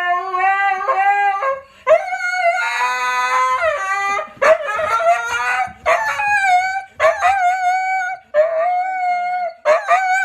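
Dog howling: a string of long, wavering howls, one after another with brief breaks.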